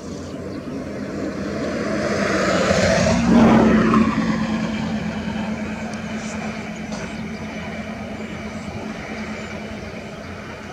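A motor vehicle passing by: its engine sound swells to a peak about three and a half seconds in, then fades slowly with a steady low hum.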